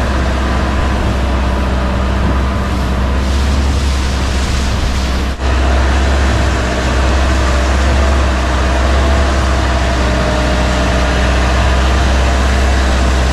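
Longtail boat's engine running steadily under way, a low drone with water and wind rushing past. The sound drops out for an instant about five seconds in, then carries on slightly louder.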